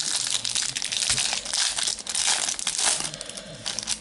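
Foil wrapper of a Topps Match Attax trading-card packet crinkling and tearing as it is ripped open and handled, a dense run of crackles.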